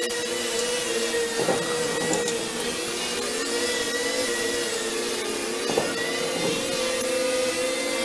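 Brush cutter engine running steadily at high speed, a whining tone that wavers slightly in pitch, with two short louder noisy bursts about one and a half seconds and six seconds in.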